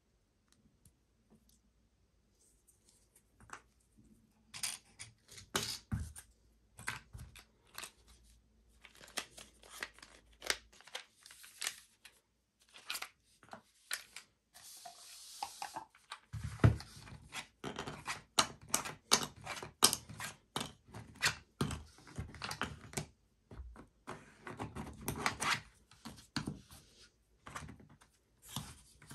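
Cardboard game pieces being handled in a box insert: square tiles and standees picked up, set down and slid against the sides, making many irregular small clicks, taps and knocks. About halfway through there is a brief sliding scrape, and the knocks grow louder in the second half.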